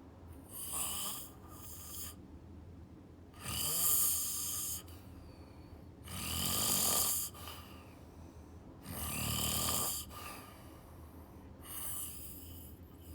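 Snoring: three loud snores about two and a half seconds apart, with softer breaths before and after.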